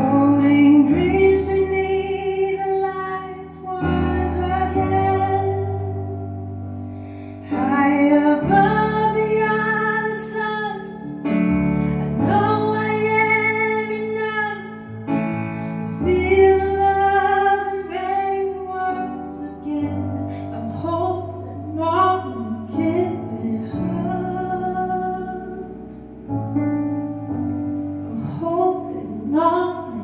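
A woman singing a slow song live while accompanying herself on a Nord Electro 4 stage keyboard, her sung phrases over sustained keyboard chords.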